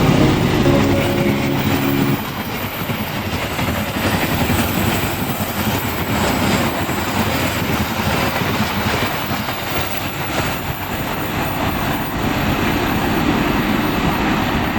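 Passenger train running past on the rails, a steady loud rumble of wheels and cars with a few faint clacks. Background music plays over the first two seconds, then stops.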